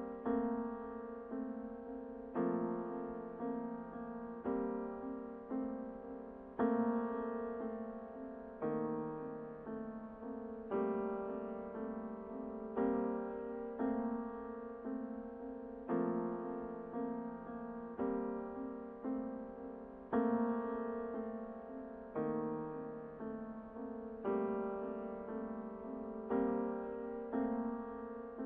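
Slow, gentle piano music: soft chords struck about once a second and left to fade.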